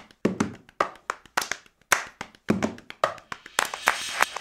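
Percussive outro music: sharp clap-like hits about twice a second, some with a deep drum hit beneath. A hiss swells in about three and a half seconds in.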